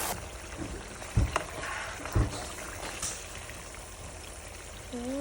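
Quiet kitchen handling sounds: two dull knocks about a second apart and a light click. Near the end a drawn-out voice sound starts.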